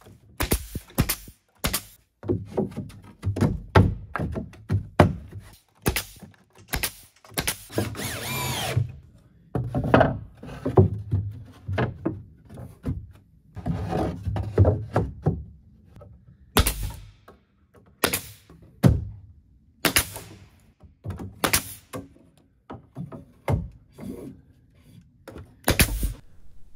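A DeWalt pneumatic nailer firing into wood framing and siding: sharp single cracks at irregular intervals, mixed with knocks and thumps of boards being handled and set in place.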